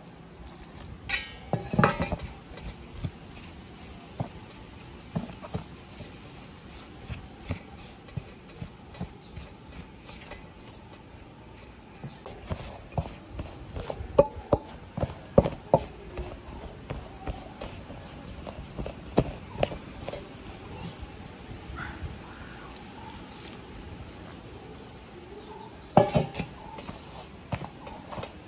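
Flour being mixed by hand with hot salted water in a stainless-steel bowl for puttu: irregular knocks, clinks and scrapes against the steel bowl. The loudest clusters come about two seconds in, in the middle, and near the end.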